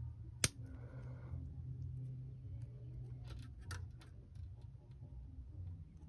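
Hands handling wiring and electrical tape at an air conditioner's control board: a sharp click about half a second in, then a cluster of small clicks and taps around three to four seconds, over a low steady rumble.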